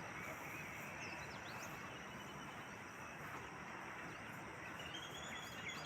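Faint steady background hiss with faint high-pitched chirps and a thin steady high tone, like a quiet outdoor ambience.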